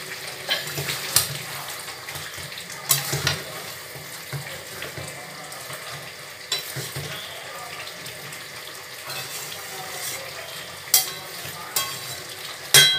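Chicken and potato pieces sizzling in a metal kadhai while a metal spatula stirs and scrapes them, clicking against the pan now and then. Near the end there is a louder ringing clank of metal on the pan.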